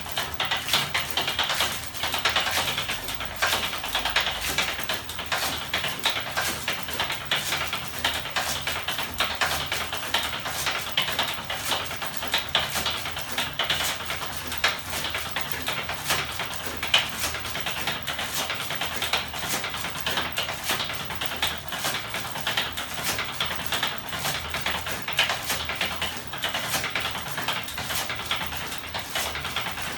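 Homemade battery-and-electric-motor magnet 'ornithopter' engine running fast, its aluminium frame and linkages clattering in a dense, rapid tapping that holds steady throughout.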